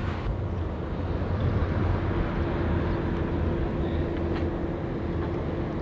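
Sailing yacht's inboard engine running steadily under way, a low drone. A steady hum note joins about two seconds in.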